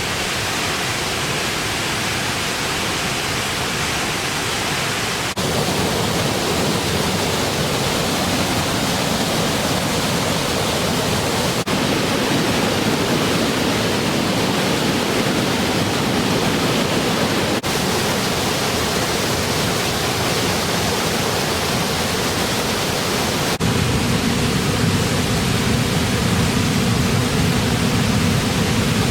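Waterfalls rushing: a loud, steady noise of falling water. It changes abruptly in tone about every six seconds as one recording cuts to the next.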